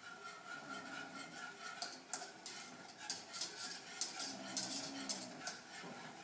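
A metal utensil stirring in a saucepan of heating milk, scraping and clicking irregularly against the sides and bottom of the pot.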